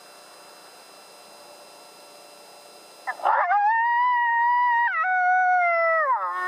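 Coyote howl call played as a vocal to draw in coyotes: after a rough start about halfway in, one long howl rises to a held note, steps down in pitch, and falls away near the end.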